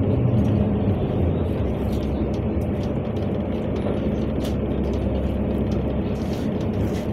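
Inside a moving NefAZ-5299 city bus: a steady low engine drone with road noise and faint scattered rattles.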